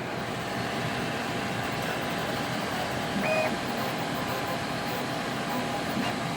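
Qidi X Plus 3 CoreXY 3D printer running a print: a steady whir of fans and stepper motors, with a brief higher whine about three seconds in.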